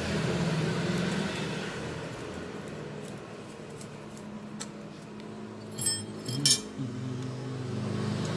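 Metal parts clinking twice, sharply and with a brief ring, about six seconds in, as bike components are handled, over a steady low hum.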